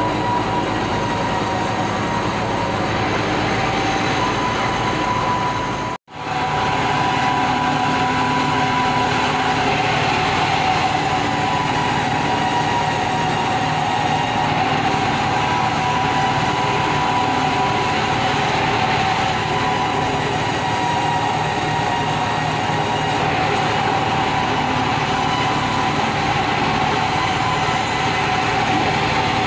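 Sawmill bandsaw machinery running steadily, a constant mechanical din with a steady whine over it. The sound cuts out for an instant about six seconds in, then carries on as before.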